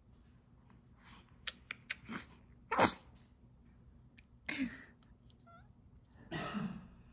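Newborn baby sneezing: one sharp, sudden sneeze about three seconds in, followed by two softer noisy sounds.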